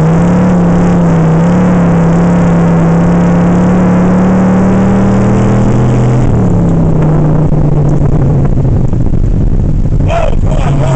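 Race car engine heard from inside the cabin at steady high revs, its pitch creeping slowly up for about six seconds, then dropping suddenly as the driver lifts off and running lower. Music comes in near the end.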